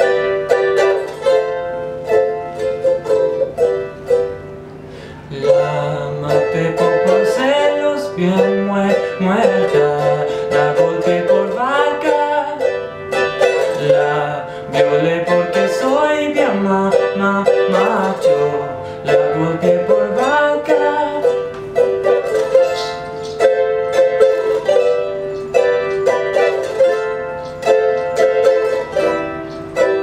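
Ukulele played with quick picked notes. A man sings a melody over it from about six seconds in until about twenty seconds, and the ukulele carries on alone before and after.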